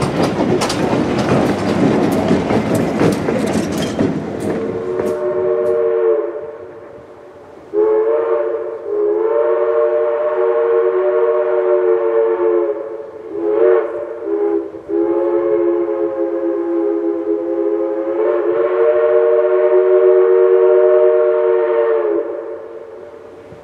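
Southern Railway #154's steam locomotive passing close, with a loud rush and rapid clatter that fades about five seconds in. Its multi-note chime steam whistle then sounds a series of blasts: a short one, a long one, two short ones, and a final long blast held for about seven seconds.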